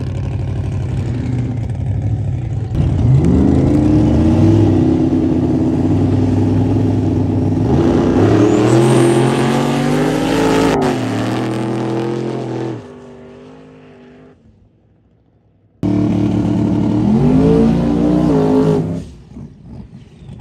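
Drag cars' engines revving hard for burnouts, with tyre spin: the first engine jumps to high revs about three seconds in, holds a steady pitch, climbs higher, then drops away. After a quieter lull another engine comes in suddenly at high revs for about three seconds and then falls off.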